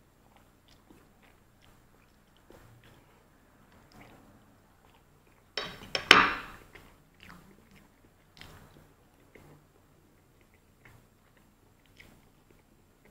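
Close-miked chewing and biting of KFC extra crispy fried chicken, with small wet mouth clicks and crunches throughout. About six seconds in there is one much louder crackling crunch.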